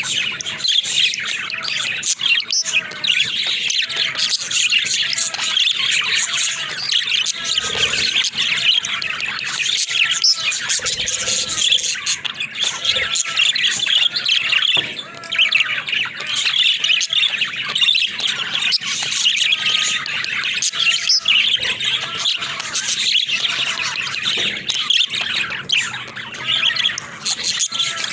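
Budgerigars chattering and warbling without pause: a dense stream of quick chirps, with short rising-and-falling calls repeated over and over.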